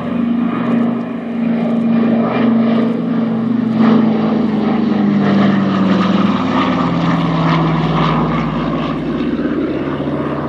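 Twin Pratt & Whitney R-1830 radial engines of a Douglas C-47 Dakota running hard in a low flyby, their propeller drone dropping in pitch as the aircraft passes about midway through.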